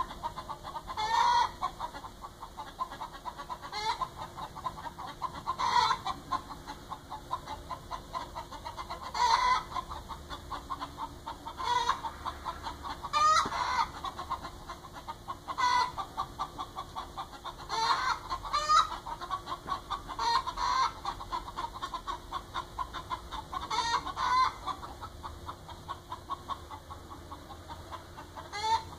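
Hens cackling: a fast run of clucks with a louder, drawn-out squawk every couple of seconds.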